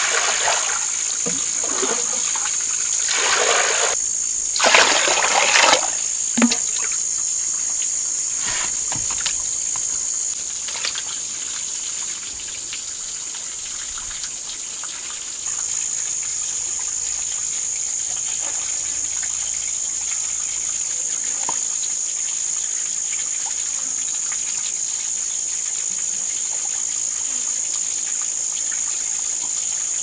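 Water poured from a plastic dipper splashes into a bamboo basket bowl a few seconds in. Under it and throughout is a steady high-pitched insect buzz. Later there are a few light knife taps on a wooden chopping board while a small fish is scaled and gutted.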